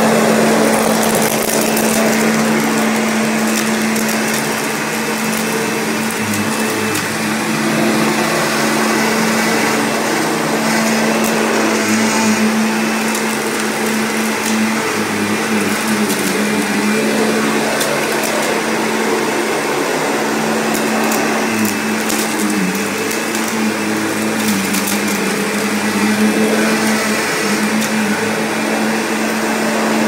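Kirby G4 upright vacuum cleaner running steadily on carpet, its motor holding one steady hum, with scattered crunchy crackles and clicks of debris being sucked up.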